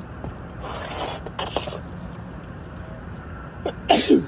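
Asphalt shingle scraping as it is worked up under the course above, about a second in, then a short falling grunt from the man doing the work near the end.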